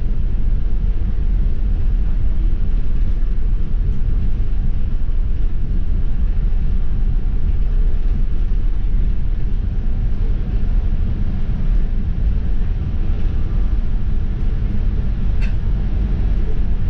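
City bus running along, heard from inside the cabin: a steady low rumble of engine and road noise.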